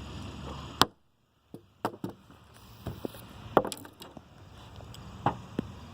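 Hatchet blows hacking at a plastic-and-metal fidget spinner: a series of sharp, irregular chopping strikes, about seven in all, over a faint background hiss.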